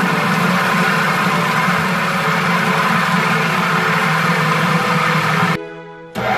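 Food processor motor running steadily as it blends chickpeas into hummus. The sound drops away for about half a second near the end, then the motor is heard running again.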